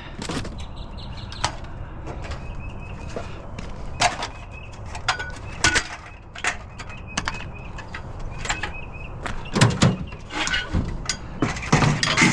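Scattered clicks, knocks and rattles of scrap items being picked up and moved in a curbside pile, with a denser clatter about ten seconds in and again near the end.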